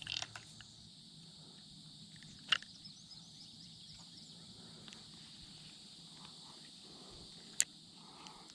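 Steady high-pitched drone of insects. A few sharp clicks sound over it, one about two and a half seconds in and another near the end.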